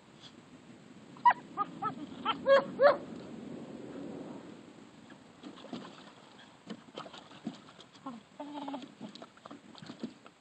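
German shepherd puppies giving high yips in rough play, a quick run of about six between one and three seconds in, then a single shorter whine near the end.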